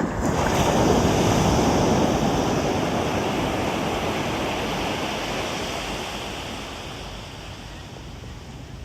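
Ocean waves on a beach: a wave breaks in the first couple of seconds, and its rushing wash slowly fades over the following seconds.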